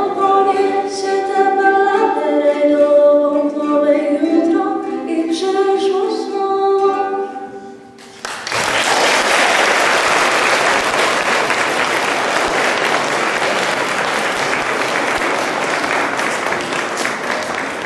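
A girl singing into a microphone with acoustic guitar accompaniment. The song ends about eight seconds in, and an audience applauds steadily for the rest.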